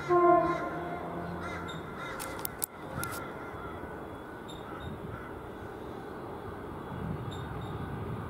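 A crow gives one loud, drawn-out caw, loudest at the start and trailing off over about two seconds. A few sharp clicks follow about two to three seconds in.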